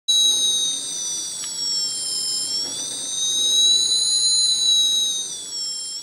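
Piezo speaker driven by a Crazy Circuits touch board, sounding a continuous high-pitched electronic tone whose pitch is set by a rope of Squishy Circuits conductive dough acting as a variable resistor. As hands stretch and squeeze the dough the pitch wavers: it dips a little about two and a half seconds in, rises back, then slides slowly down towards the end.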